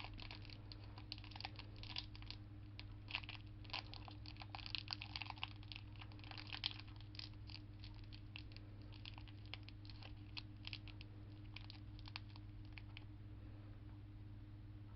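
Small plastic wrapper on an individually wrapped gummy candy crinkling and crackling as it is handled and opened: a quick run of small crackles that thins out and stops about thirteen seconds in. A steady low hum lies under it.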